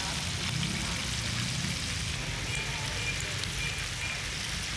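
Breaded chicken pieces deep-frying in a wok of hot oil: a steady sizzling crackle.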